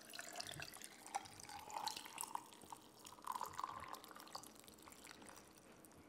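Green tea poured from a pitcher into a glass over mint ice cubes: splashing and gurgling liquid with many sharp little clicks and crackles from the ice. The pour tails off about five seconds in.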